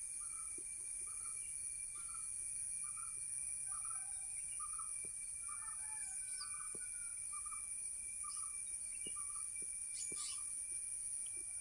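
A bird calling one short note over and over, about twice a second, with a few brief high chirps from other birds mixed in. A steady high-pitched drone of crickets or other insects runs underneath.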